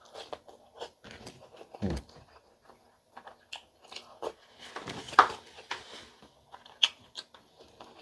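A person chewing squid adobo in coconut milk, with many short mouth clicks and a louder burst about five seconds in.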